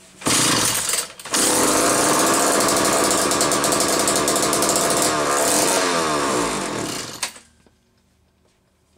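McCulloch 1-40 two-stroke chainsaw fires for a moment and cuts out, then catches and runs for about six seconds before its revs sag and it stalls. It is not out of fuel; the owner suspects a poor tune and that the carburetor may need a rebuild kit.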